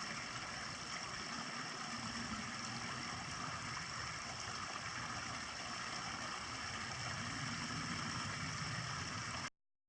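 Steady splashing of water running over a small rock waterfall, with no change in its flow; it cuts off abruptly near the end.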